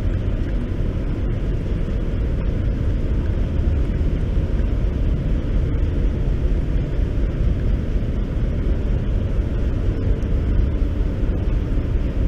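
Steady low rumble of a cargo ship's engine-room machinery, heard inside the engine control room.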